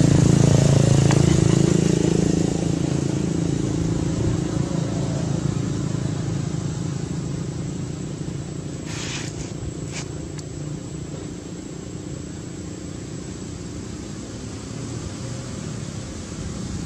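A motor vehicle's engine running, loudest at first and fading away over about twelve seconds as it passes off, with two brief sharp sounds about nine and ten seconds in.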